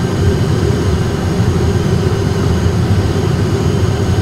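Steady flight-deck noise of an Airbus A320 on short final: a constant low hum and rush of engines at approach thrust and airflow, unchanging throughout.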